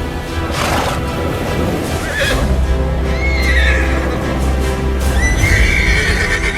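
Horse whinnying twice, a shorter call about three seconds in and a longer one near the end, over background music with a deep bass.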